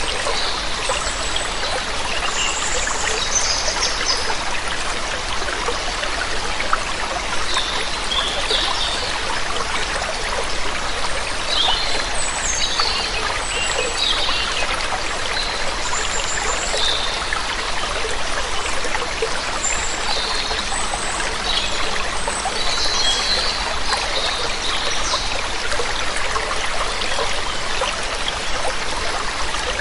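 Steady rush of a waterfall or stream, with short bird chirps scattered over it.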